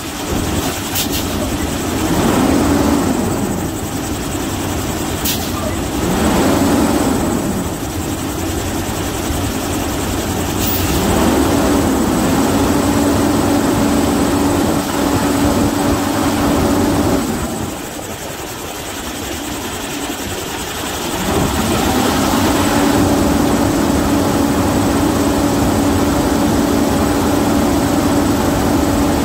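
2016 International semi-truck's diesel engine being revved: two short blips about 2 and 6 seconds in, then raised and held at a steady higher speed for several seconds, dropped back toward idle, and raised and held again.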